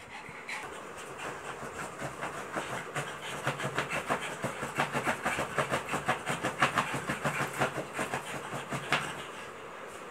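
A pug panting hard and fast, a quick rhythmic chuffing that builds over the first seconds and eases off near the end.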